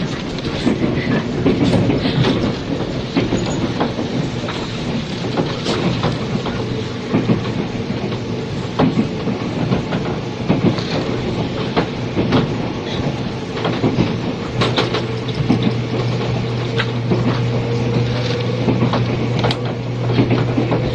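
Inside a JNR 485-series express train car running at speed: a steady rumble with wheels clicking over rail joints and a low hum that grows louder about two thirds of the way through. A faint whine rises slowly near the end, and cassette-tape hiss lies over it all.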